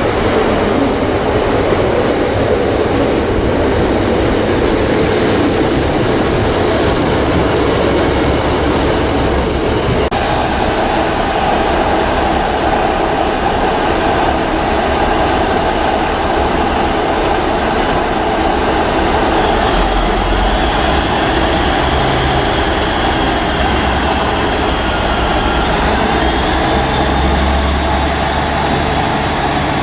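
A train running past on the line, a steady loud rumble of wheels on rail. There is a thin whine that rises and falls in the last third.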